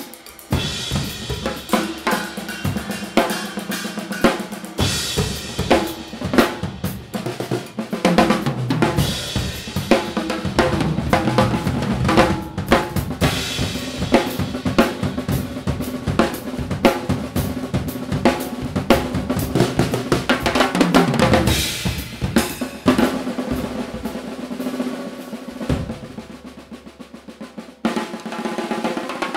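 Two Gretsch drum kits with Sabian cymbals played together in a free improvisation: dense snare, bass drum, tom, hi-hat and cymbal strokes trading back and forth. The playing thins out and drops in level for a few seconds near the end, then builds again.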